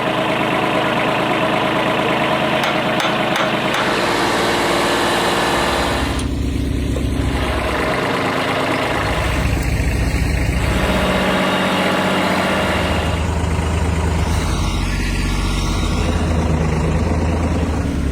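Tractor engine running steadily, its pitch and load shifting several times as it works.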